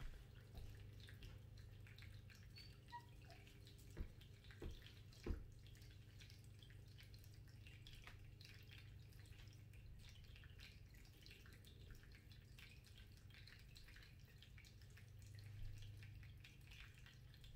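Near silence: room tone with a steady low hum, and three short faint knocks about four to five seconds in.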